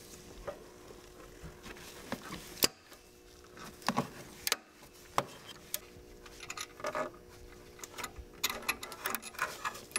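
Light metallic clicks and clinks of a ratchet and 12 mm socket working the timing belt tensioner bolt on an engine, heard as scattered single clicks and then a quicker run of clicks near the end.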